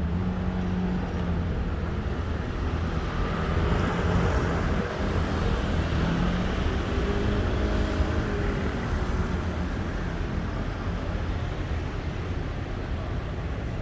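Train running with a steady low rumble and an engine hum that drifts slightly up and down in pitch.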